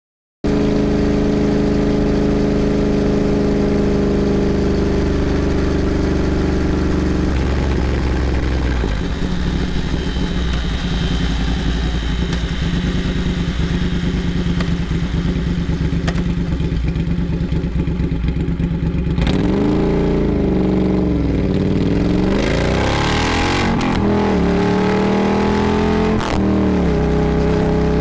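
Triumph Thruxton R's 1200 cc parallel-twin engine through Meerkat racing mufflers, running loud and steady, with a change in note about a third of the way in. Over the last third the pitch rises and falls several times as it revs.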